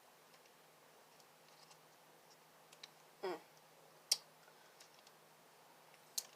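Faint clicks and crinkling from a chili sauce packet being handled in a struggle to open it, with a short falling sound about three seconds in and a sharp click just after four seconds.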